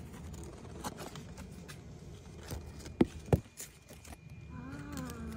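Handling noise from a handheld camera moving among guava leaves: scattered clicks and rustles, with two sharp knocks about three seconds in. Near the end a woman briefly hums.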